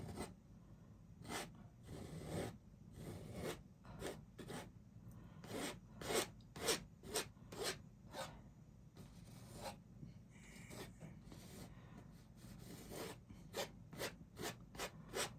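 Paint being worked onto a canvas in quick, short strokes, a dry scratchy rub with each stroke, in irregular bursts of two or three a second, with a pause of about two seconds in the middle.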